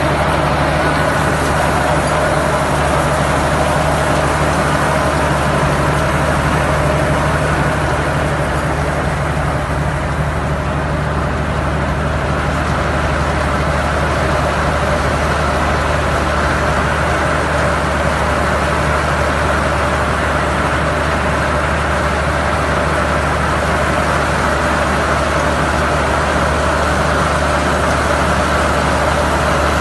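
Engine of a sargassum-harvesting boat running steadily, a loud continuous low hum with no change in speed.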